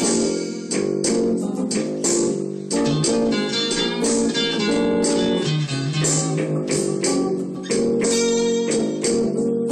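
Electric guitars jamming a blues groove, picked notes and strummed chords, with sharp rhythmic hits throughout.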